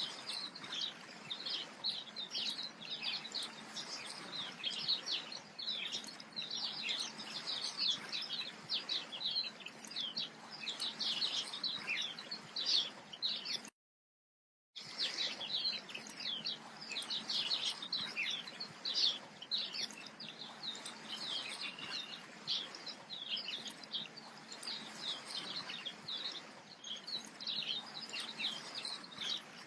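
A dense chorus of many small birds chirping and twittering without pause over a faint steady hiss. It cuts out to complete silence for about a second midway, then resumes.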